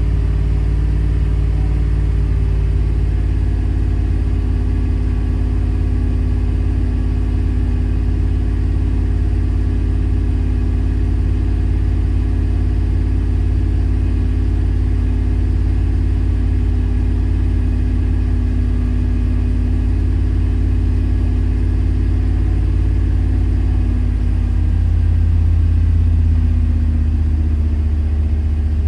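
A 2001 truck's 5.3-litre LS V8 engine running rough with a misfire. It runs steadily, then briefly grows louder and shifts in pitch near the end.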